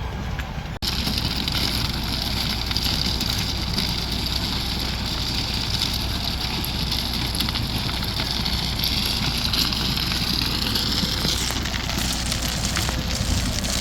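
A conveyor truck's engine runs steadily while rock rattles and pours off its conveyor belt. About a second in, the sound breaks off for an instant and then carries on.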